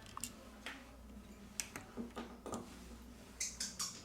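Small, sharp, irregular clicks and taps, with a quick run of them near the end. These are tools and small plastic and metal parts being handled while a Samsung Galaxy A30s smartphone is put back together.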